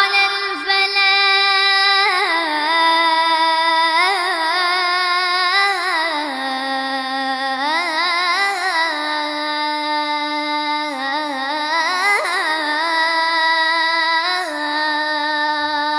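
A boy's voice chanting the adhan, the Islamic call to prayer, drawn out as one long unbroken phrase with many ornamented turns. It dips lower about midway and climbs again near the end.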